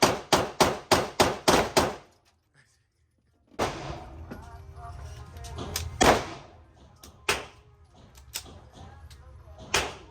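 Rapid gunfire at a steady pace, about three to four shots a second, that stops abruptly about two seconds in. After a short silence, background music plays with a few single sharp shots.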